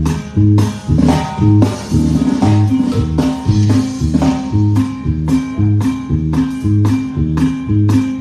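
A live band plays an instrumental groove during a sound check: a bass line alternating between notes, a strummed bajo sexto and snare hits about twice a second.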